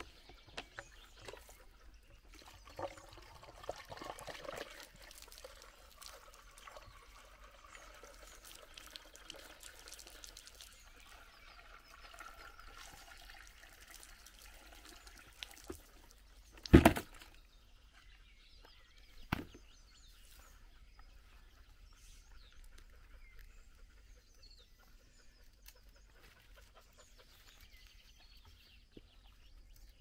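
Water pouring and trickling as a garden hose is filled through a funnel from a plastic bucket, through roughly the first half. About halfway through comes one sharp knock, the loudest sound, then a smaller one a couple of seconds later.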